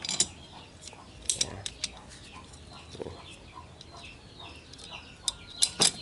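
Metal clicks and knocks of a washing-machine spin-dryer motor's pressed-steel end cover being fitted back onto the motor by hand, the loudest knocks near the end, with chickens clucking in the background.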